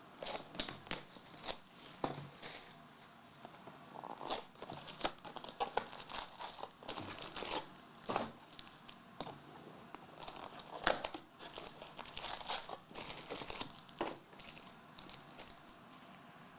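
Plastic packaging of trading-card boxes and packs being torn open and crinkled by hand: irregular crackling and ripping sounds as the wrappers are pulled apart.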